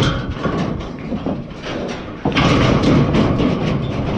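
Steel livestock chute rattling and banging as the animal held in it shifts against the bars, with a louder burst of clanging about two seconds in.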